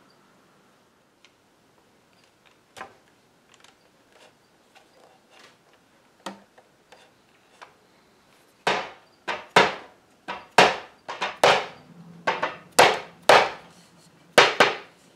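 Faint clicks, then about a dozen sharp knocks in quick irregular succession on a wooden chair stretcher, struck to knock its glued joint loose from the leg.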